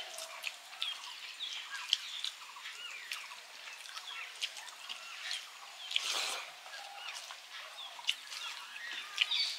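Small birds chirping over and over in short rising and falling notes, with scattered small clicks and smacks from eating rice by hand off steel plates. A short, louder noisy burst comes about six seconds in.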